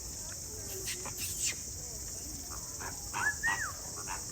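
A few short, nasal honking calls from greater flamingos, clustered about three seconds in, over a steady high insect drone.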